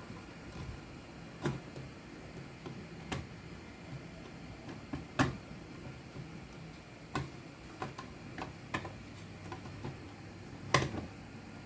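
Scattered sharp clicks and light taps, roughly a second or two apart at uneven intervals, from handling and fitting the power supply's metal case back together.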